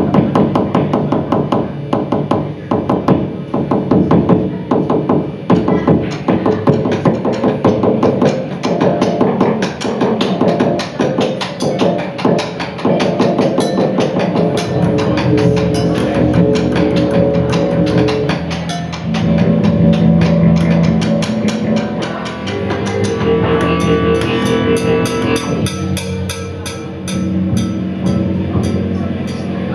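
Live music from a trio with busy drum and percussion playing: dense, rapid strikes through the first half, then sustained held notes from a pitched instrument over continued light high ticking in the second half.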